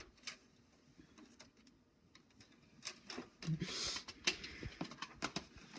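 Faint scattered light clicks and taps of handling and movement, with a brief rustle about three and a half seconds in.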